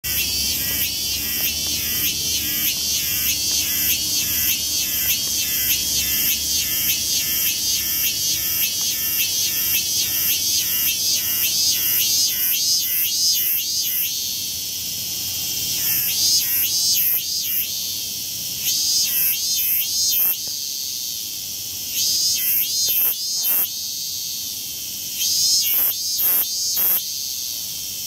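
Loud cicadas calling: a steady high hiss from many insects, with one near cicada pulsing about twice a second. About halfway through this pulsing gives way to irregular clusters of loud strokes.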